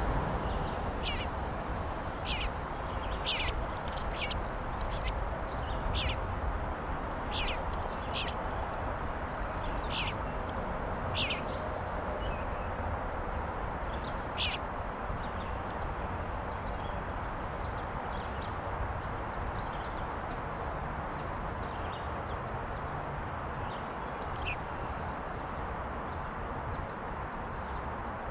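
Bluebirds giving short, sharp calls about once a second through the first half, then a quick run of notes and a last call later on, over a steady outdoor rushing noise.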